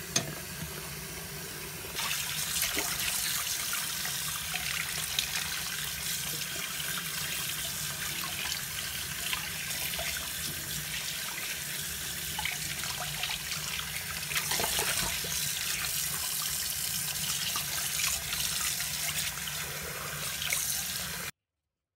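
Tap water running and splashing into a stainless steel bowl in a kitchen sink as raw pork is rinsed by hand. The splashing gets louder about two seconds in and cuts off suddenly near the end.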